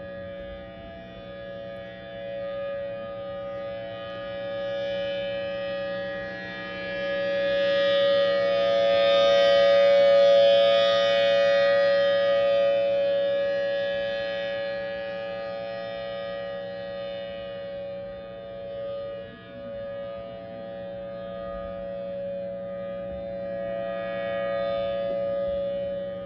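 Federal Signal Thunderbolt 1000T warning siren sounding a steady tone at a fixed pitch. It swells to its loudest about ten seconds in, then fades and comes up again near the end, as the rotating siren head sweeps toward and away.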